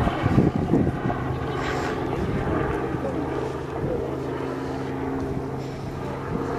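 Steady engine hum holding one even pitch, with a few gusts of wind buffeting the microphone in the first second.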